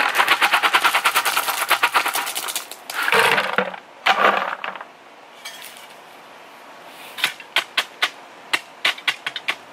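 Gravel pouring from a plastic bucket into a post hole: a dense rattle of stones for about three seconds, then two short shakes as the last of it slides out. Near the end, a run of sharp clicks and knocks as a post hole digger is worked down in the hole on the gravel.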